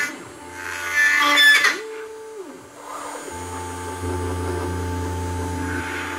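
CNC router spindle cutting into small plywood pieces with a 5 mm downcut end mill, with a loud burst of cutting noise about a second in. The machine's motors then whine up and back down in pitch as the head moves to the next piece, and a steady motor hum follows.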